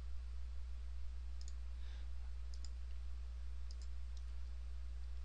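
Computer mouse clicks, a few single and double clicks spread a second or so apart, over a steady low hum.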